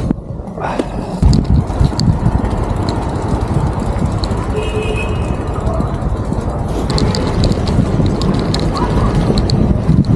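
Riding a bicycle through town traffic: wind buffeting the microphone and road rumble, with a brief tone a little before the middle and quick light ticking in the second half.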